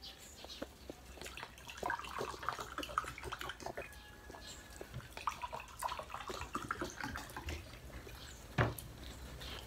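Liquid poured from a plastic bottle into a glass, splashing and gurgling for several seconds, followed by a single sharp knock near the end.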